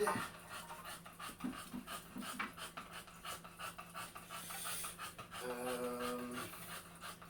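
Rapid, even panting breaths, with a short steady-pitched whine lasting about a second, a little past halfway through.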